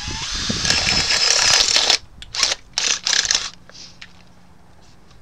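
Cordless drill boring a hole through the top of an aluminium beverage can: a loud, harsh grinding that cuts off suddenly about two seconds in. A few short bursts of noise follow, then it goes quiet.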